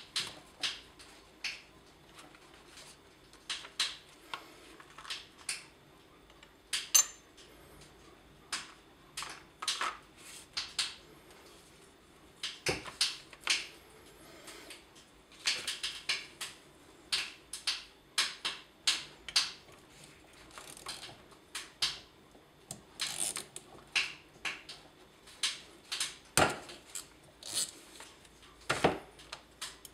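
Irregular small clicks, taps and light metal knocks from a Briggs & Stratton 5 hp carburetor and its small parts being turned over and worked on by hand on a tabletop, a few a second with occasional louder knocks.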